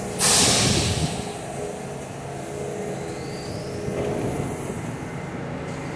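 R62A subway train pulling out of the station: a loud burst of air hiss from the brakes in the first second, then a steady rumble of the moving cars with a faint rising motor whine.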